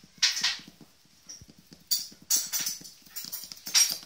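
Twenty-day-old puppies scrambling about on fleece bedding and tile, their claws scratching and tapping in several short bursts over faint quick ticking.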